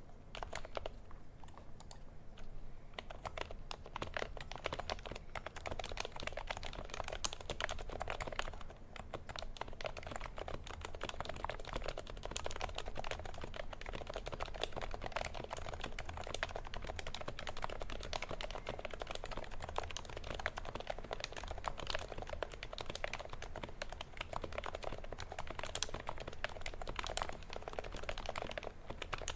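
Continuous rapid touch typing on an HHKB Pro 2 Topre keyboard. It is silenced with #3 Deskeys rings, and its sliders are lubed with 3204 over stock rubber domes.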